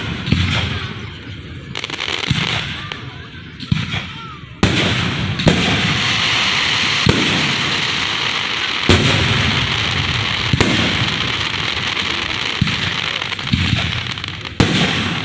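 Aerial fireworks exploding close by: sharp bangs every second or two. From about four seconds in until near the end, a dense steady hiss fills the gaps between them.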